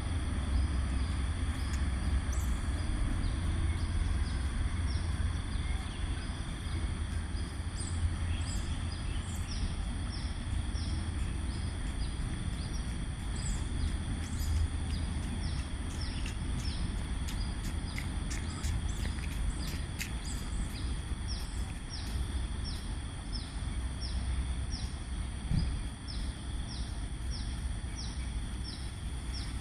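Outdoor riverside ambience: a low steady rumble under a steady high-pitched hum, with short, high, falling chirps repeating about once a second, thickest in the middle stretch.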